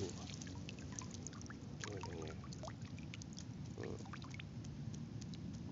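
Shallow water sloshing and trickling, with many small scattered clicks and ticks.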